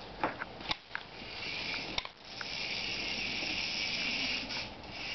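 Small electric motor of a remote-controlled toy mouse whirring steadily for about three seconds, starting about a second in, with a few light clicks and taps before it.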